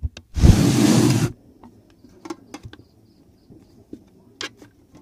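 Handling noise from a phone camera resting on a wooden surface: a loud rustling rub against the microphone for about a second, then scattered light taps and clicks as fingers touch and shift the phone.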